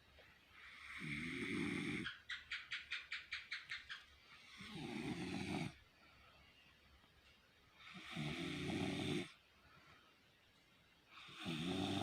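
A heavy-set sleeper snoring: four harsh, rasping snores come about three to four seconds apart. Right after the first comes a quick fluttering rattle of about a dozen beats.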